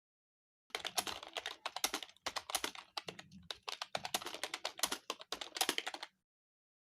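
Rapid typing on a computer keyboard: a fast run of keystrokes with two short breaks, stopping about six seconds in.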